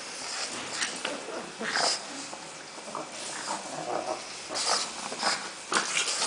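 Two pugs play-wrestling: irregular breathy, snuffling dog sounds and short dog noises mixed with scuffling on bedding.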